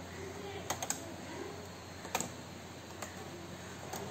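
Laptop keyboard clicking as a pry tool levers it up out of its case: a few sharp plastic snaps, two close together about three-quarters of a second in and another pair about two seconds in.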